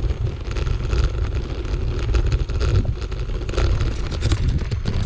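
Bicycle riding over a gravel forest track: tyres crunching and crackling on the loose gravel, with frequent small rattles, under heavy wind buffeting on the microphone.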